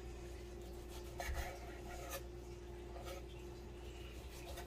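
Chef's knife slicing through raw chuck steak onto a wooden cutting board: a few faint, soft cuts and scrapes. A steady faint hum runs underneath.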